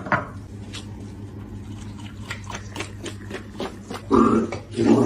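A dog making two short, loud vocal sounds near the end, over a steady low hum and scattered light ticks.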